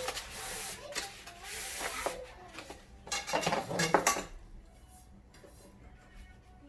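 Plastic shoe-rack parts clattering and rattling as they are handled and fitted together, with a louder run of clicking knocks about three seconds in, then quieter.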